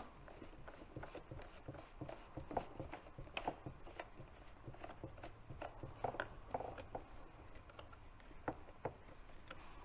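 Faint, irregular clicks and rubbing from the pump assembly of a DJI Agras T40 spray tank being handled and turned over in the hands.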